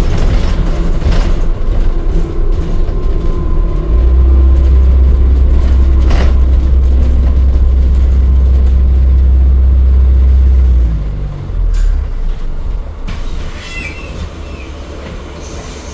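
Interior running noise of an Alexander Dennis Enviro400 hybrid double-decker bus under way: a heavy low rumble from the driveline and road, strongest for several seconds mid-way, then dropping off as the bus slows.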